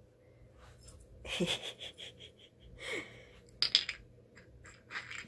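A plastic bottle cap batted about by a cat, clicking and clattering on a wooden floor; the sharpest clicks come about three and a half seconds in. Two short breathy sounds, falling in pitch, come before it.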